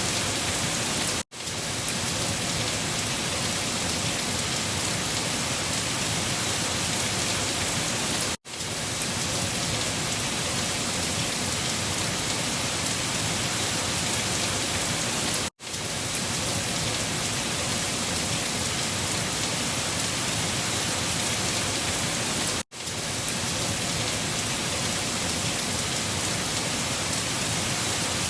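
Steady rain falling, an even hiss. The sound cuts out for an instant four times, about every seven seconds.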